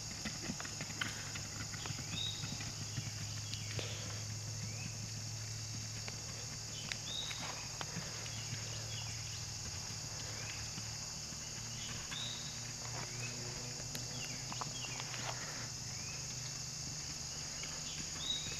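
A ridden horse's hooves striking grass: scattered, uneven hoofbeats over a steady high hiss.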